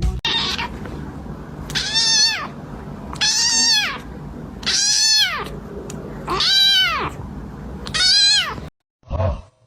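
A cat meowing five times, one long call about every second and a half, each rising and then falling in pitch.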